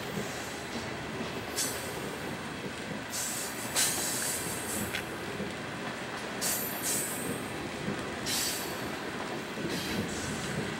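Loaded coal hopper cars rolling by on curved track: a steady rumble of steel wheels on rail, with the wheels squealing high-pitched several times in short bursts.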